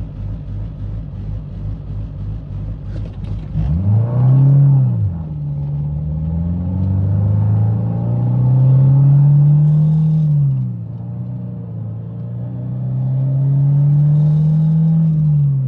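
Honda Civic four-cylinder engine heard from inside the cabin: a pulsing low drone for the first few seconds, then three pulls where the engine note climbs and drops at each shift, about 4, 10 and 15 seconds in. It is louder and more droning than normal because the stiff 95A motor mounts pass more engine vibration into the car.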